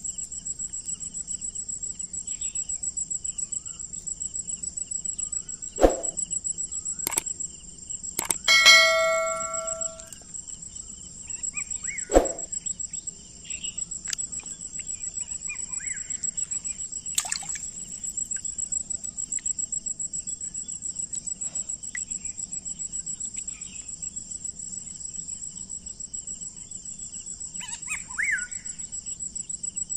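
Insects chirring steadily in a high, fast-pulsing drone, with a few sharp knocks and a brief ringing tone about nine seconds in.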